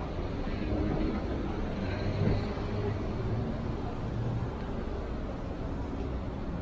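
Road traffic: a steady low rumble of cars idling and creeping through an intersection, with a car passing close by. It gets slightly louder about two seconds in.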